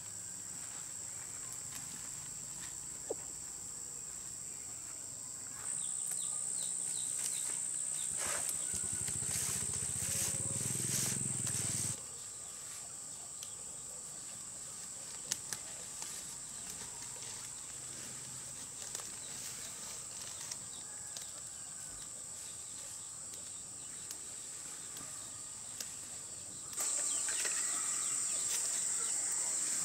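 Steady high-pitched drone of insects in rural vegetation. It gets louder at about six seconds, drops back at twelve, and rises again near the end, with scattered faint clicks and rustles.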